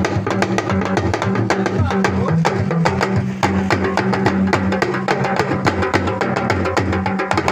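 Music with busy, rapid percussion strokes over a steady low bass line.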